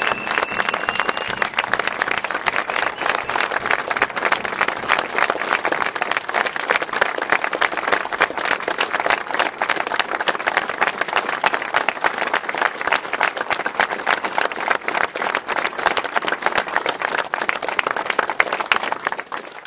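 Crowd applauding steadily, a dense patter of many hands clapping without a break.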